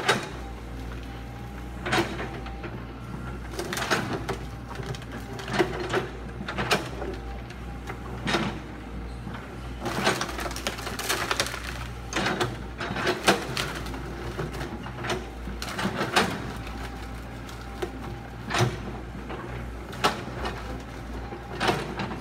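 Kobelco hydraulic excavator's diesel engine running steadily while its bucket tears out a bamboo clump, with irregular sharp cracks and knocks every second or two as bamboo stems and roots break.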